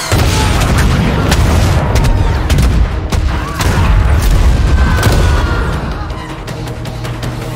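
Film explosions from a drone strike: a heavy blast hits suddenly at the start and rolls into a long low rumble, with sharp gunshot-like cracks through it. The rumble eases off about six seconds in.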